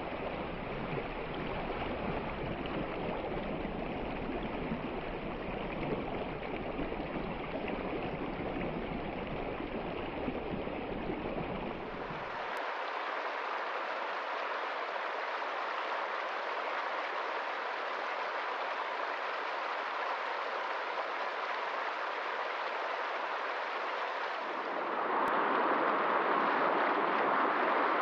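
River water rushing and flowing steadily over rocks. The sound changes abruptly about twelve seconds in, losing its deep rumble, and again near the end, where it turns louder and brighter.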